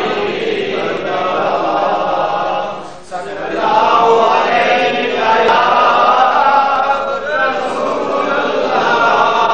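A crowd of men chanting together in unison, with a brief dip about three seconds in.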